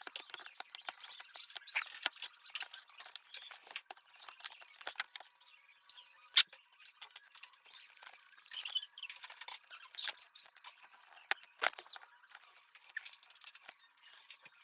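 Small hand tools clicking and scraping against a smartphone's parts during a repair, in irregular light taps, with one sharp click about six seconds in.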